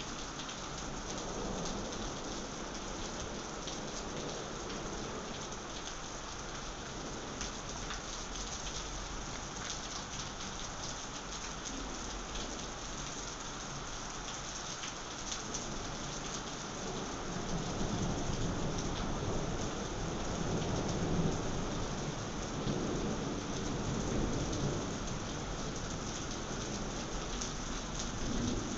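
Thunderstorm: steady rain pattering throughout, with a long low rumble of thunder rolling through in the second half.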